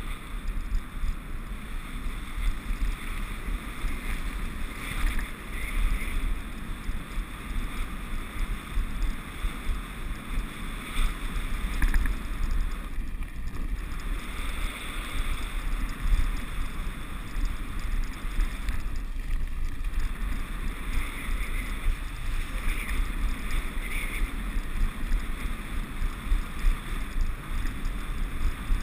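Mountain bike riding fast over a muddy dirt road: a continuous low rumble of tyres and wind buffeting the action camera's microphone, with frequent small knocks and jolts from bumps in the track.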